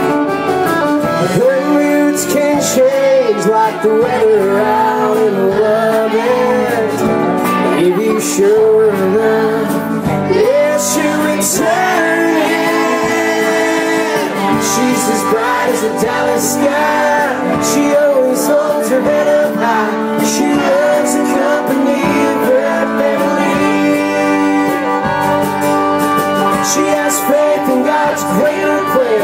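Live country band playing: acoustic guitar strummed under a fiddle melody, with a man singing.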